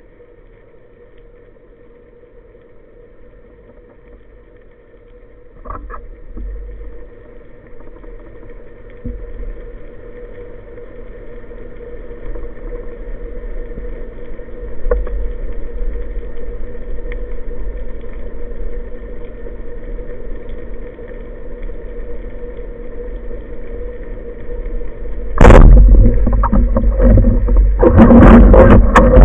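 Steady underwater hum, then near the end a rubber-band speargun fires with one sharp, loud snap, followed by a burst of loud clattering.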